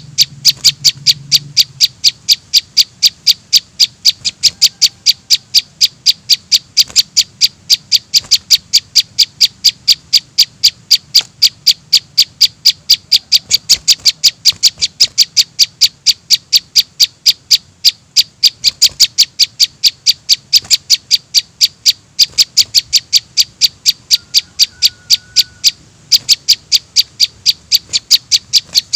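Fledgling prinia (prenjak) begging calls played as a bird-trapping lure: short, high chirps repeated rapidly and evenly, about three to four a second.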